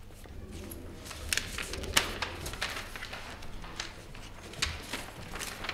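Quiet room tone with a low hum and scattered light clicks, knocks and rustles, the sharpest about two seconds in.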